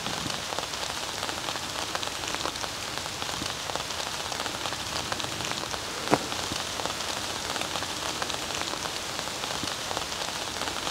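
Steady rain falling on the leaves and floor of a forest, a dense hiss of fine drops, with a single sharper click about six seconds in.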